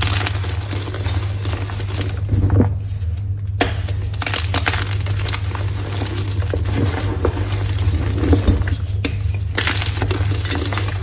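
Reformed chalk being crushed, giving a dense irregular crunching and crackling as it crumbles, over a steady low hum.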